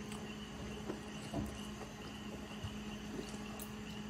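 Quiet room tone with a steady low hum, and a few faint clicks of forks against plates.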